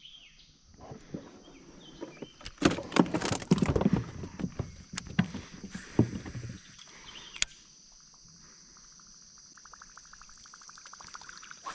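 Irregular knocks and clatter against a flat-bottom fishing boat, loudest in the first half, over a steady high buzz of insects. A quick run of even ticks comes near the end.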